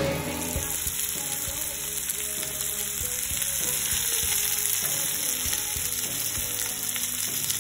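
Salmon steaks shallow-frying in a little oil in a pan: a steady high sizzle, with a few light knocks as the pieces are turned with metal tongs.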